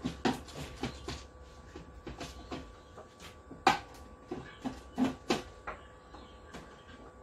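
Irregular clicks and knocks of a screwdriver and hands on the black plastic back cover of a flat-screen TV, with one sharper knock a little over halfway through and two more soon after.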